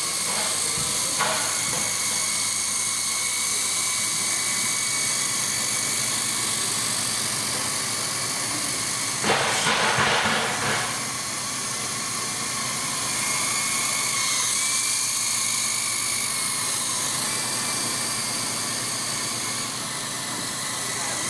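Double Horse 9051 toy RC helicopter in flight, its two small electric main motors and rotors whirring steadily with a high whine that wavers in pitch as the throttle changes. About nine seconds in, a louder rushing noise lasts about a second and a half, and a short click comes about a second in.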